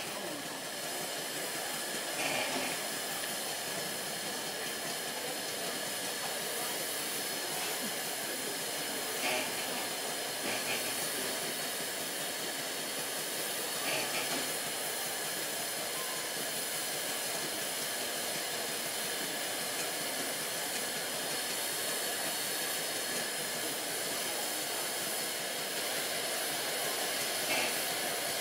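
Standing LNER A3 Pacific steam locomotive No. 60103 Flying Scotsman hissing steadily as steam escapes while it waits under steam, with a few short, slightly louder sounds over the hiss.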